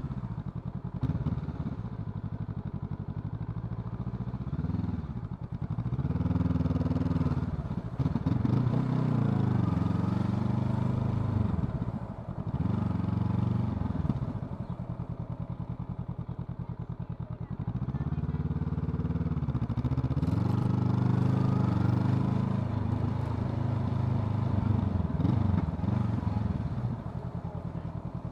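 Honda CL500's parallel-twin engine running at low revs and being blipped and opened up in repeated swells, the revs climbing and dropping back several times, with steadier low-rev stretches in between.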